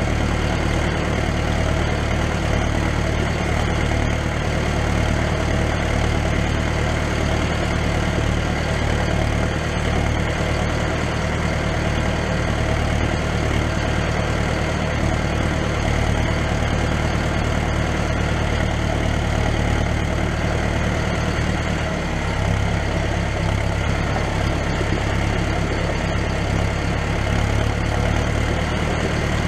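Engine and exhaust of a vehicle towing a trailer of soil, running steadily at low speed; the engine note shifts about 22 seconds in.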